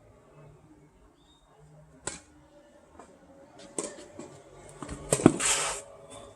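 Tennis rally: sharp pops of the ball being struck by rackets, about one and a half seconds apart. The loudest strike comes about five seconds in, followed by a brief rush of scuffing noise.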